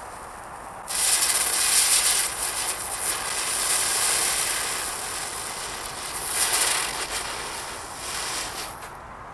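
Aldi 'Silber Wirbel' ground-spinner firework: a fuse fizzing, then about a second in the spinner ignites into a loud hiss of spraying sparks that swells and fades as it whirls, easing off near the end.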